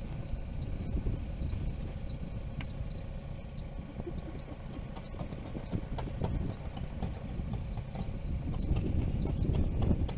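Freezing rain ticking in scattered small clicks on iced-over ground, the ticks growing more frequent near the end, over a low steady rumble.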